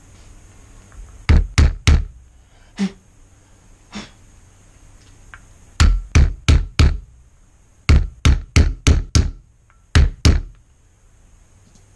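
Claw hammer tapping a wooden block on a 1967 MGB front brake caliper, sharp knocks in quick runs of two to five, about three a second, to seat a newly fitted seal part flush in its groove.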